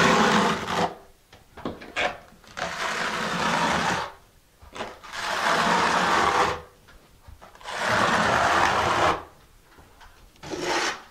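Steel 1/4-inch square-notch trowel scraping thinset mortar across a shower ceiling in long overhead strokes, four passes of about two seconds each with short pauses between.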